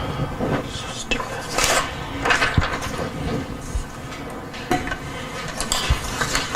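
Manual typewriter clacking: irregular sharp metallic clicks and clatter of keys and typebars being struck.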